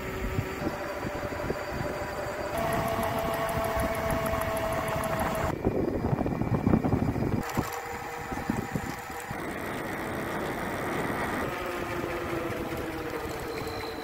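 A 500-watt brushless scooter hub motor on a homemade electric bike whines steadily while riding at speed, over wind and tyre noise on asphalt. In the second half the bike is climbing a hill under load, and the whine's pitch dips and then recovers late on.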